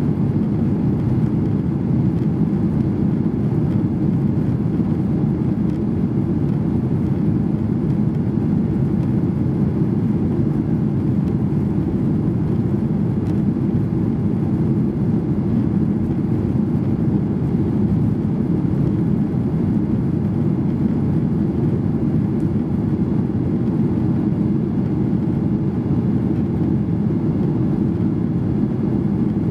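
Steady cabin noise inside a Solaseed Air Boeing 737-800 climbing out after takeoff: a low, even rumble of jet engines and rushing air that holds unchanged.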